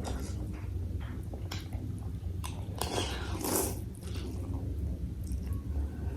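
Close-miked chewing and biting of bakso meatball soup, with scattered small clicks and a louder rushing noise about three seconds in, over a steady low hum.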